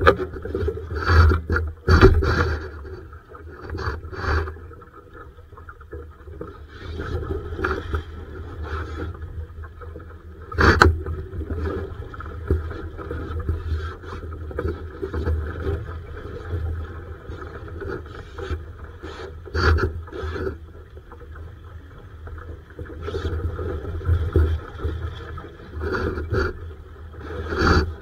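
A Laser sailing dinghy under way: irregular knocks and scrapes from the hull and fittings over a continuous low rumble and wash of noise.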